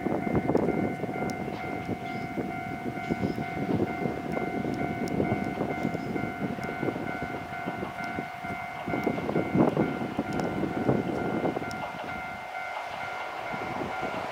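Gakunan Railway 9000 series electric train approaching from a distance on single track, an uneven rumble under a steady high tone with overtones that sounds throughout. The low rumble eases off near the end as the train draws closer.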